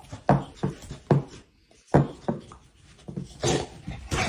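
A dog barking indoors in a rapid string of short barks, about two or three a second with brief gaps.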